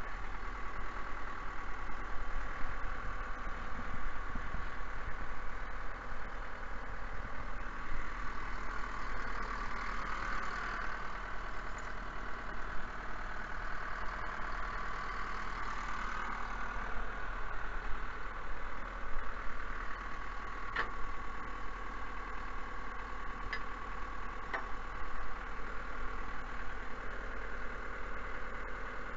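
Vehicle engine idling steadily, with a steady high tone over a low hum. A few sharp clicks come in the last third.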